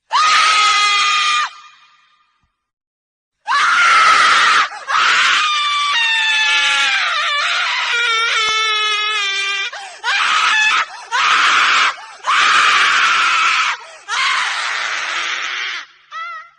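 A woman screaming: one high scream, a pause of about two seconds, then a long string of screams with short breaks, some of them wavering in pitch, ending with a brief shorter cry.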